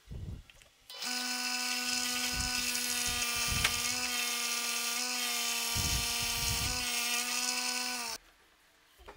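Homemade disc sander driven by an electric water pump motor, running with a steady pitched hum while its abrasive disc sands the end of a wooden strip, with a dense hiss of grit on wood and a few light knocks as the piece is pressed in. The sound starts about a second in and cuts off abruptly near the end.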